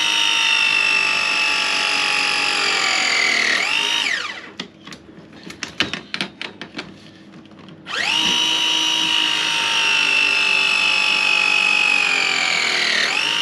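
Battery press tool crimping press fittings onto 22 mm copper heating pipe, twice. Each cycle is a steady motor whine of about four seconds whose pitch sags slowly and then swoops up as the cycle finishes. Between the two cycles there are a few clicks and knocks as the jaw is moved to the next joint.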